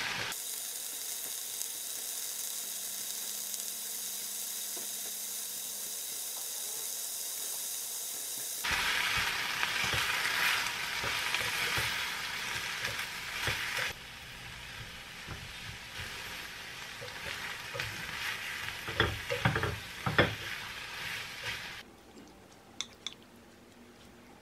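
Sliced cabbage sizzling as it fries in a pan, stirred with wooden chopsticks, a steady hiss that changes abruptly twice. Later the chopsticks click against the pan while mixing in a sauce. Near the end the sizzle stops, leaving a few light clicks as the food is scraped onto a plate.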